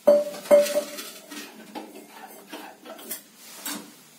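Metal kitchenware: two sharp, ringing clinks of steel near the start, then a run of lighter clinks and scrapes as a steel ladle stirs a metal pan on the stove.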